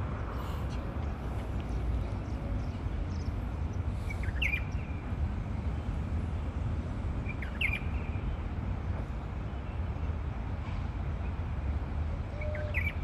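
A bird chirping briefly three times over a steady low background rumble.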